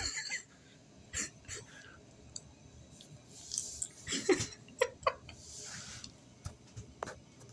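A man chuckling quietly and breathing out through a grin, in a few short breathy bursts with faint mouth clicks between.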